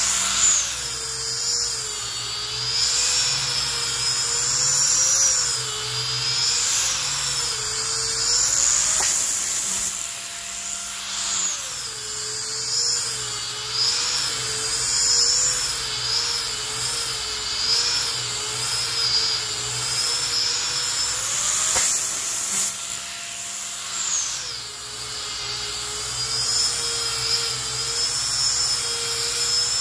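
Angle grinder with a sanding disc running against a pine tabletop, its high motor whine wavering continuously as the disc is pressed and moved over the wood. The pitch rises briefly twice, about ten and twenty-two seconds in, then settles back down.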